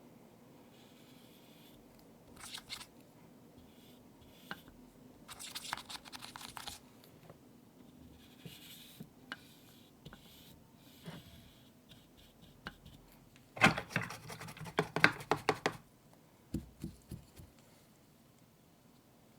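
Hands handling a plastic toy and painting supplies: intermittent scrapes, rustles and small clicks, with a louder run of rapid clicking and rattling about two-thirds of the way in.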